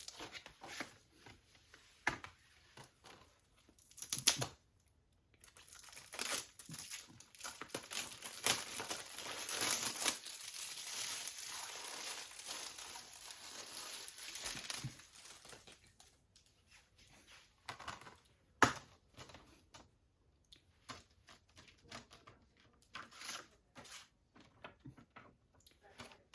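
Plastic shrink-wrap being torn and peeled off a Blu-ray case: scattered crinkles and taps, then several seconds of continuous crinkling in the middle. Handling clicks follow, one of them sharp.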